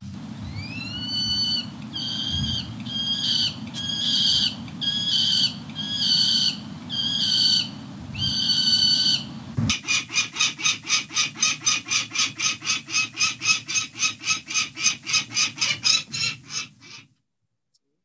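Peregrine falcon calls from a recording. About eight drawn-out calls, the first one rising, play over a low background rumble. About halfway through they give way to a rapid run of short, sharp repeated calls, about five a second, which stop abruptly shortly before the end.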